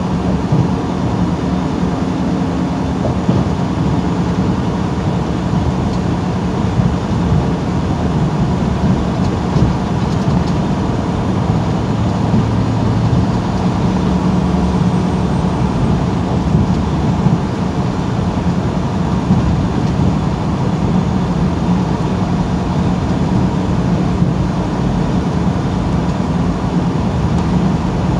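Semi truck's diesel engine and tyre noise heard inside the cab while cruising at highway speed: a steady, loud low drone.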